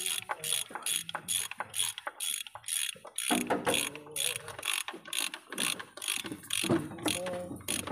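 Ratchet wrench on a long socket extension clicking in a quick even run, about four clicks a second, as the socket is turned by hand.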